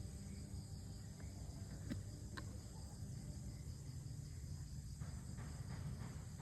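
Steady outdoor background of insects chirping over a low hum, with a couple of faint clicks about two seconds in.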